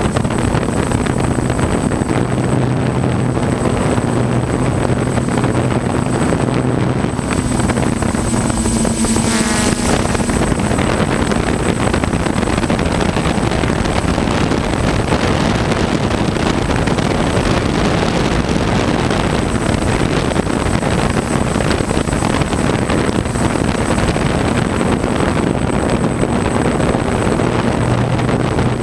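Multirotor drone's motors and propellers humming steadily right by its on-board camera microphone, mixed with wind noise; the hum shifts and wavers briefly about nine seconds in.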